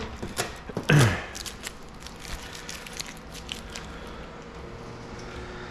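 Vinyl wrap film being handled and smoothed on the car: a run of short crackles and scrapes, with two louder sounds in the first second.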